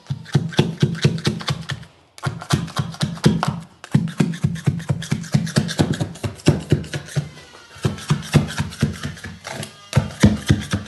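Quick run of knocks, several a second, as a carpet tucker is struck along the skirting to push the carpet edge down behind the gripper strip, with music in the background.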